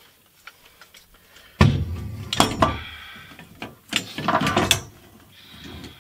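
Red steel base of a Harbor Freight drywall lift being unfolded and handled: its tubular legs and casters clank and rattle, with a sharp metal knock about a second and a half in and a second burst of clanks around four seconds, some of them ringing briefly.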